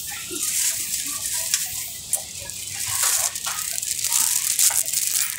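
Thin plastic bag crinkling and rustling in irregular crackly bursts as it is handled.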